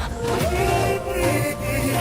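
Pop music with a sung vocal line over a steady beat.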